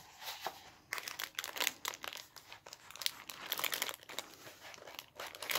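Clear cellophane packaging crinkling as craft items are handled and pulled out, in irregular crackles that start about a second in.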